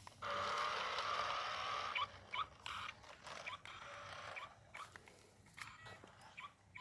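Small electric motor and gears of a toy RC minivan whirring steadily, then weakening after about two seconds into broken, stuttering whirs and clicks that fade out: the battery is going flat.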